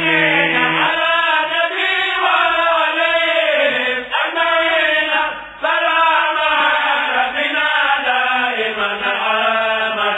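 A voice chants an Arabic devotional poem in the Senegalese khassida style. It draws each word out in long, winding melismatic notes, with only a brief dip about five seconds in.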